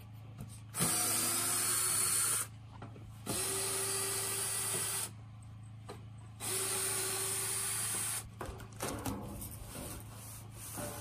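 Cordless drill running in three even bursts of about a second and a half each on the screws of a corrugated steel roofing panel. Near the end the thin metal panel clatters and flexes as it is lifted.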